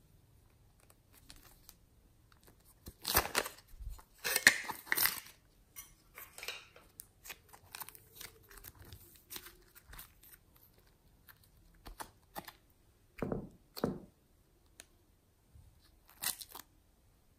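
Glossy slime being squeezed, stretched and pulled by hand, giving irregular bursts of sticky clicks and crackles. The loudest clusters come about three to five seconds in and again near the end.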